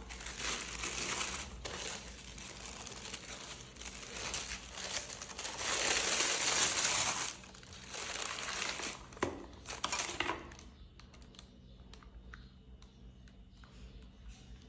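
Thin tissue paper rustling and crinkling as hands fold it back from around a shoe in its box. It is loudest around the middle and dies down after about ten seconds to faint handling sounds.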